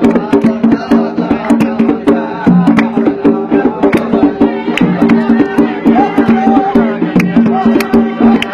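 Instrumental passage of Arabian 'dan' folk music: hand drums knock out a steady maqsum rhythm under held notes and a melody line.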